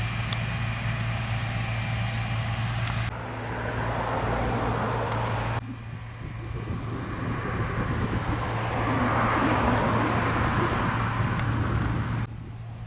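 John Deere T670i combine harvester running steadily while harvesting wheat, a constant low engine hum under a broad machinery rush. The sound changes abruptly three times.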